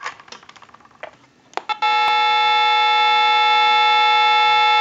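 A few handling clicks, then about two seconds in a loud, steady touch-tone (DTMF) tone for the digit 8 starts and holds, heard through an amplified pickup on a Western Electric glow phone's line. The phone is dialing an 8 on its own: its distorted front keypad screen is pressing the 8 contacts, the cause of the constant buzz heard when trying to dial out.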